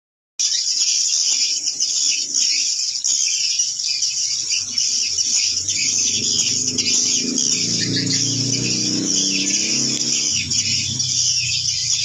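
Dense, continuous twittering of swiftlet calls, starting sharply just after the start: the external lure sound played to draw edible-nest swiftlets to a bird's-nest house. A low rumble joins underneath from about halfway and fades near the end.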